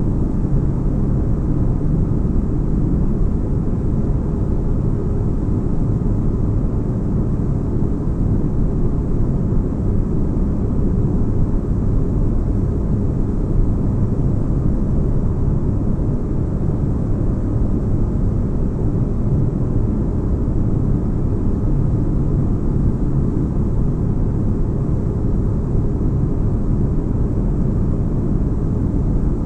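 Steady deep-bass spaceship ambience: a constant low rumble with a faint hum in it, like engine drone heard inside a ship's cabin, with no changes or events.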